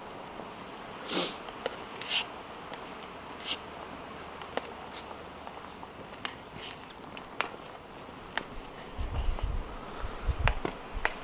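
Utensil stirring tagliatelle in a steel billy can of boiling water on a wood-burning Firebox stove: a steady hiss with scattered sharp clicks and a few soft scrapes. Low rumbling thumps come in over the last couple of seconds.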